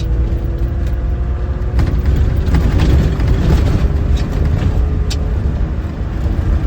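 Land Rover driving downhill on a rough dirt trail: a steady engine drone over low rumble, with several sharp knocks and rattles from the rough ground.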